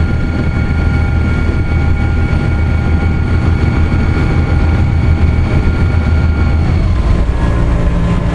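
Car ferry's engines running with a steady low drone and a high whine; the whine fades about seven seconds in as a deeper hum comes up.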